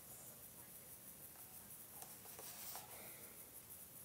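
Near silence: room tone, with a few faint ticks about two to three seconds in.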